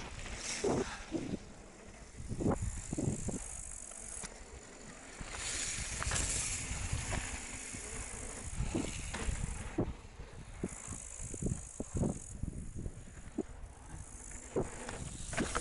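Mountain bike rolling down a loose gravel trail: tyres crunching on gravel, with frequent sharp clicks and knocks from the bike over a steady low rumble.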